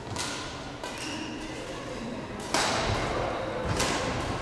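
Badminton racket strikes on a shuttlecock during a rally, four sharp hits about a second apart, the loudest roughly two and a half seconds in. The hall echoes, with chatter in the background.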